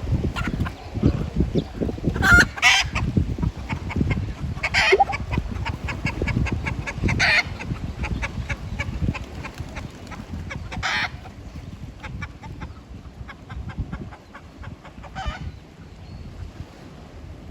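Chicken giving about six short, harsh calls spaced out over the stretch, over a low rumble of wind on the microphone.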